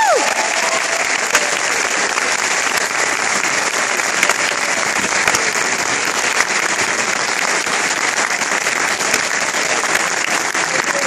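A concert band's held final chord cuts off right at the start, followed by steady audience applause.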